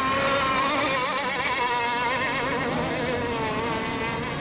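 Several radio-controlled racing boats running laps on the water, their motors whining at high revs with pitch that wavers and glides as they turn and bounce over the chop.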